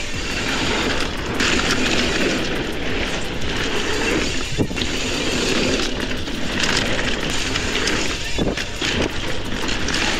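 Mountain bike being ridden down a dirt trail: steady wind rush on the microphone and tyre noise, with a few sharp knocks and rattles from the bike over bumps.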